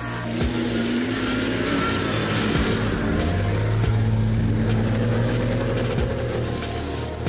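Off-road 4x4 vehicle's engine running steadily under load, a little louder in the middle, with a few low thumps.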